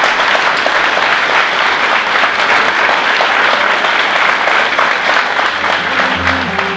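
A crowd applauding: steady, dense clapping from many hands that eases near the end as soft music comes in.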